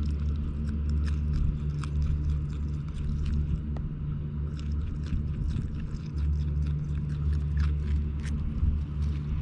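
Groundhogs chewing carrots close to the microphone: a quick, irregular run of sharp crunches over a steady low rumble.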